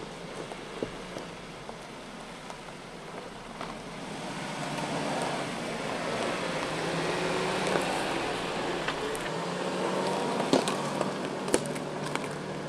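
2019 Suzuki Jimny's 1.5-litre four-cylinder petrol engine pulling at low speed off-road, its note rising and growing louder from about a third of the way in. Twigs and leaf litter crackle under the tyres, with a few sharp snaps near the end.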